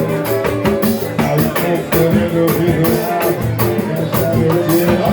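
Band music with a steady, dense drum beat, guitar and singing, in the manner of a Brazilian samba.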